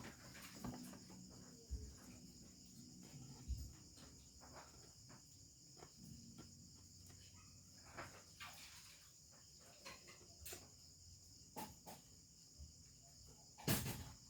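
Mostly quiet: faint scattered clicks and taps of small objects being handled, with one louder knock near the end, over a steady high-pitched hiss or chirring.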